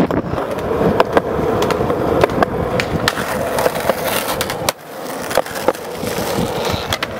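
Skateboard wheels rolling on concrete with a steady hum, broken by a number of sharp clacks as the board's tail and trucks hit the ground and a concrete ledge. The rolling drops away briefly near the middle, then picks up again.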